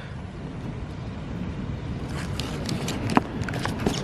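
Steady low rumble of wind on the microphone, with a few light clicks and taps in the second half, the loudest just after three seconds, as a knife cuts into a block of butter on a plastic chopping board.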